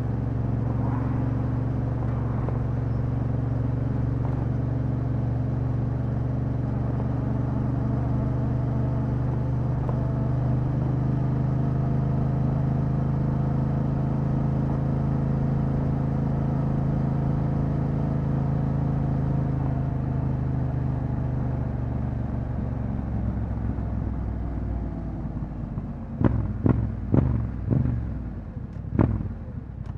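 Yamaha Ténéré 700's parallel-twin engine through an Akrapovič exhaust, running at a steady cruise, its note dropping about three quarters of the way through as the bike slows. In the last few seconds come a handful of short, sharp bangs.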